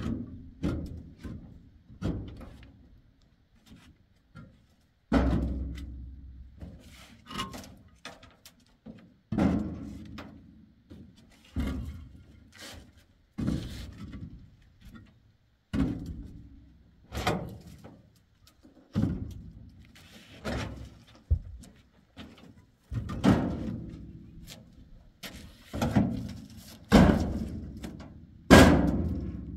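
Building blocks being handled and set down one after another, each landing with a dull thunk, about one a second at an uneven pace.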